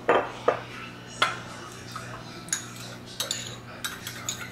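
A glass sauce bottle set down on a stone countertop with a couple of sharp knocks near the start, then a metal spoon clinking irregularly against a small ceramic bowl as a sauce is stirred.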